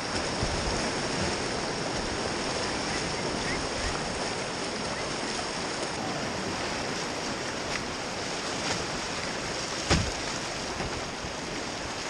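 River rapids rushing and splashing around a kayak, heard close to the water. A single sharp knock about ten seconds in.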